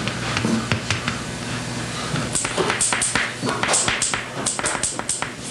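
A small pointed tool tapping and scratching on an inked monotype printing plate, in quick irregular clicks that come thickest from about two seconds in.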